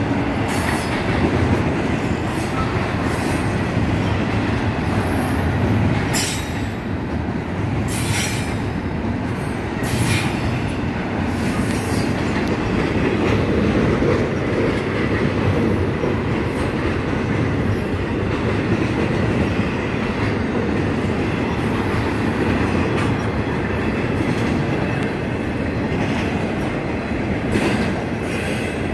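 Florida East Coast Railway intermodal freight cars rolling steadily across a steel deck railway bridge, a continuous rumble of wheels on rail. A few sharp clanks stand out between about six and ten seconds in.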